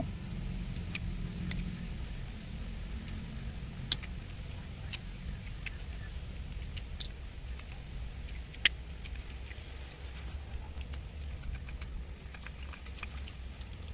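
Light metallic clicks and clinks of screws and small parts being handled as a brushcutter's Walbro carburettor is taken apart, with a few sharper ticks, over a steady low hum.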